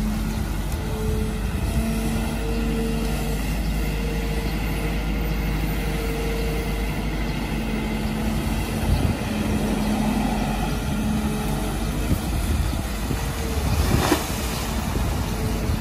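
Kobelco SK200 hydraulic excavator's diesel engine running under working load while the arm and bucket dig in wet mud, with a pitched hydraulic whine that comes and goes as the arm moves. A single sharp knock near the end.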